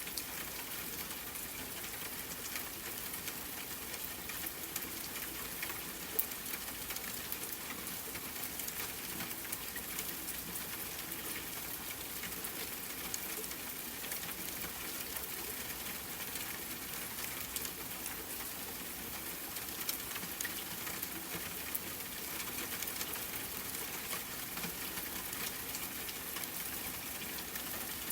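Steady rain pattering, an even hiss full of small drop ticks, with one louder click about six seconds in.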